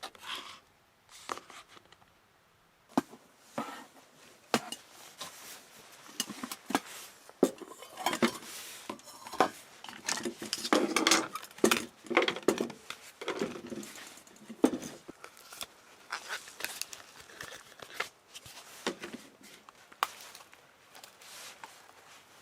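Small objects being handled close by: a string of sharp clicks and light knocks, with denser crinkling and rustling in the middle, like packaging or gear being unpacked.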